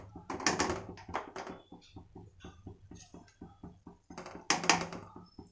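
A ladle stirring and knocking against a pot of vegetables in water, with two loud knocks about four and a half seconds in. Between the knocks the liquid heating toward the boil makes a quick, even run of soft pops, several a second.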